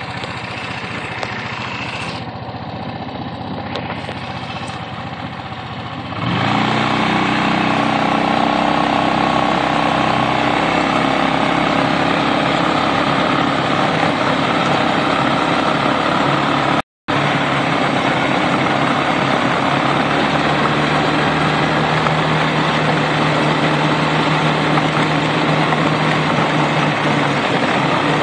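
Quad bike engine running under way; about six seconds in it picks up and gets louder, then holds a steady note. The sound cuts out for an instant about halfway through.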